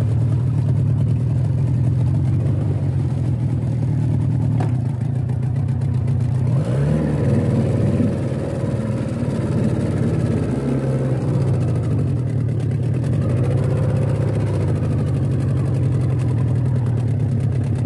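Fishing boat's engine running steadily, its pitch shifting briefly about seven seconds in.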